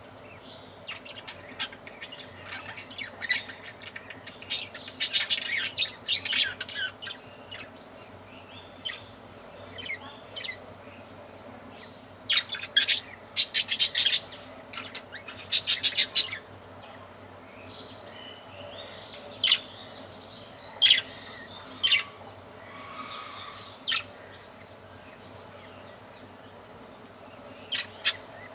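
Budgerigars chirping and squawking: clusters of rapid, harsh squawks come about five seconds in and again around twelve to sixteen seconds in, with scattered single chirps after that.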